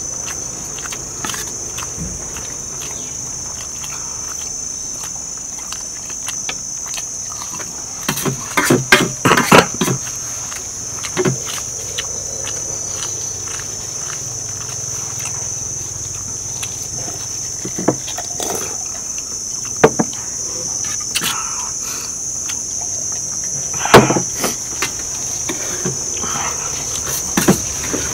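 Insects chirring in one steady, shrill, unbroken tone, with scattered sharp clinks and knocks on top, a cluster of them about nine seconds in and a loud single one about 24 seconds in.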